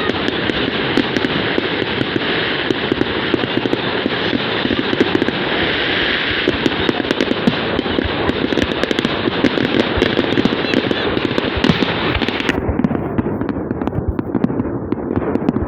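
Fireworks going off: dense, continuous crackling and popping full of sharp cracks. A high hiss underneath cuts off suddenly about twelve seconds in.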